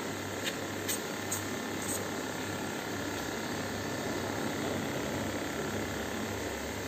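Aquarium equipment running steadily: an even hiss of moving water and air with a low electrical hum, and a few faint ticks in the first two seconds.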